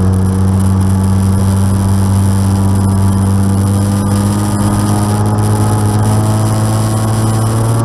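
Light aircraft's piston engine and propeller running at low power, a steady drone whose pitch creeps slowly upward and steps up near the end. This is the engine noise under investigation after the fuel-injection spider was replaced.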